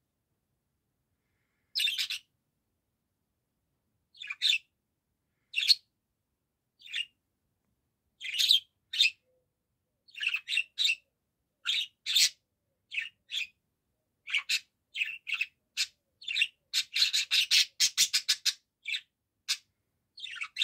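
Budgerigar chirping in short, high calls, sparse at first and coming faster from about ten seconds in, with a quick run of chirps near the end.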